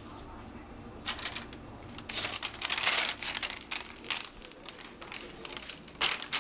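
A sheet of paper crinkling and rustling as it is handled and flapped, in several bursts, the longest and loudest about two to three seconds in and another near the end.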